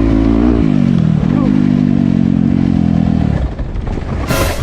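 Dirt bike engine revving up and down, then holding a steady pitch before it falls away about three and a half seconds in. A short burst of noise comes near the end.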